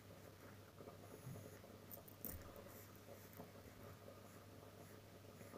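Faint scratching of a pencil drawing short curved strokes on paper, with a few light taps of the lead.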